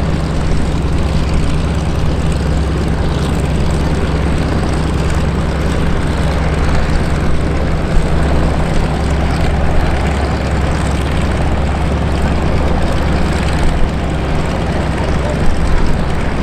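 Westland Sea King helicopter flying low, its main rotor and twin Rolls-Royce Gnome turboshaft engines making a loud, steady din with a constant low drone.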